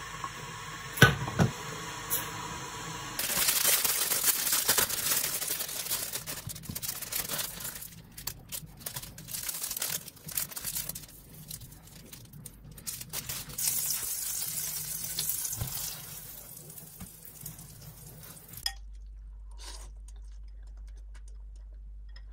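Instant noodles cooking in a pan, in several short stretches: a hissing rush of water or boiling, with a few sharp clicks and knocks of a utensil. The last few seconds are much quieter.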